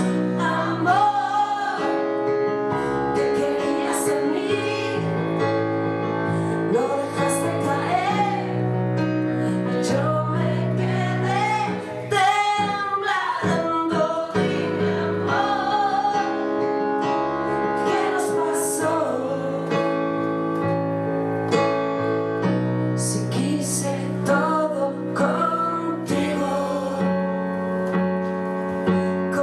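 Band music played live, with a woman's voice carrying a gliding melody over sustained bass and chords.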